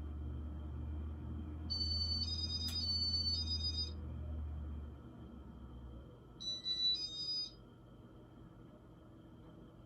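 Electronic two-tone beeping: four alternating high beeps about two seconds in and two more a few seconds later, over a low steady hum that drops away about halfway through.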